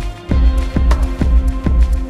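Background music with a steady beat, about two beats a second, over a heavy bass line; the bass drops out briefly just after the start.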